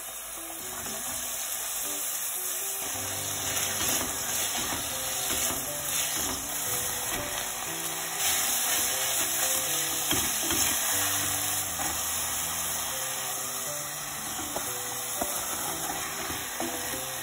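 Diced onion, then ground meat, stir-frying in hot oil in a stainless steel pot: a steady sizzle that grows a little louder over the first few seconds.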